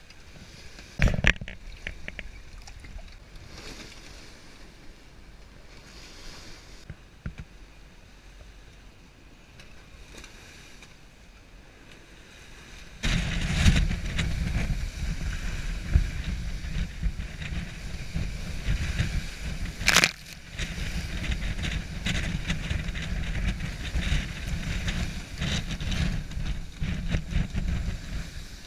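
Wind and sea rushing past a sailing yacht under way in rough water, with waves washing along the hull. About a second in there is a sharp knock. A little before halfway it turns much louder, with heavy wind buffeting the microphone over the rush of water and spray, and a sharp slap of spray or a wave about two-thirds of the way through.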